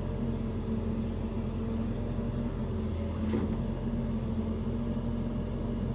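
Excavator engine running steadily with an even hum while the machine digs.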